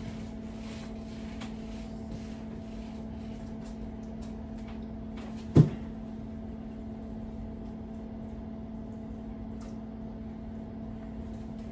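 Steady low hum of a kitchen appliance, with faint handling clicks as cooked chicken is pulled off the bone over a pot. One sharp knock about halfway through is the loudest sound.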